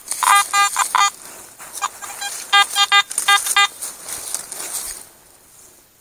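Metal detector giving short electronic beeps in quick bursts, about four in the first second and a second run of about five some two and a half seconds in, as it is swept over a buried target in the dug soil.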